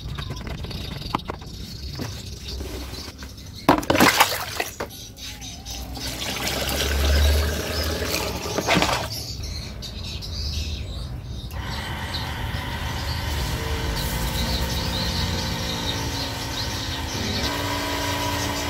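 Handling clicks and knocks on an electric knapsack sprayer, the loudest about four seconds in. From about twelve seconds in, its battery-driven pump runs steadily with the hiss of a fine mist from the spray lance, the spray now strong after the pump motor's bearing seat was modified.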